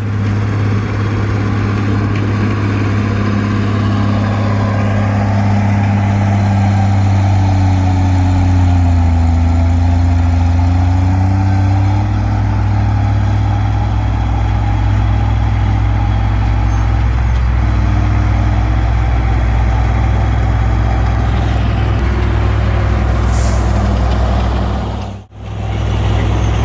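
Komatsu D20P bulldozer's diesel engine running steadily at working speed; its pitch dips briefly and recovers about eight to twelve seconds in. The sound cuts out for a moment near the end.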